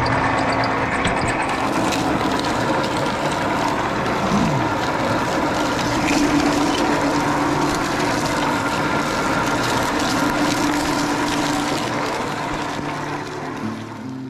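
A roughly 100-year-old sugar cane mill, driven by an electric motor through a 1935 Ford rear end, is running and crushing cane stalks between its rollers. A steady machine hum and grinding carries a dense crackle of stalks being split and squeezed.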